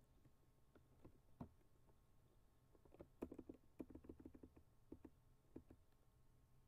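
Faint computer keyboard keystrokes as a spreadsheet formula is edited. A few single key clicks come first, then a quick run of presses about three seconds in, then a couple more single clicks.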